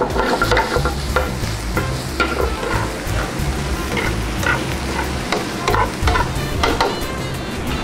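Sliced bell peppers and onions frying in olive oil in a hot sauté pan, sizzling steadily, while metal tongs stir and toss them, clicking against the pan about every half second.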